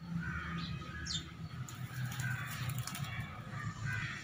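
Small birds chirping and calling, with a quick falling whistle about a second in, over a low steady hum.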